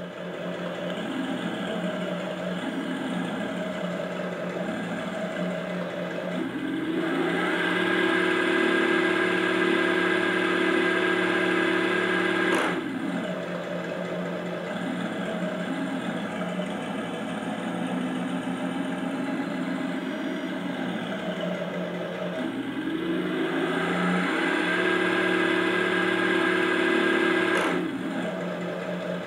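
ESS-One sound module playing its second engine sound, a smooth truck engine heard through the RC truck's small speaker. It idles, then revs up and holds for about five seconds, twice. Each time it drops back to idle with a short sharp sound.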